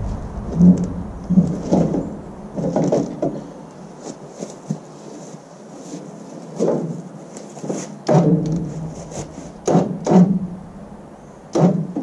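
Irregular knocks and clunks, about ten of them with a quieter lull in the middle, from a heavy wood-burning furnace being shifted and handled on the truck during unloading.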